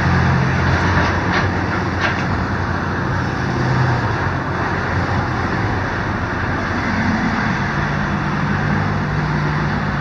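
Road traffic passing close by over the steady low hum of a diesel engine, with a few sharp knocks about one and two seconds in as an excavator breaks up a building.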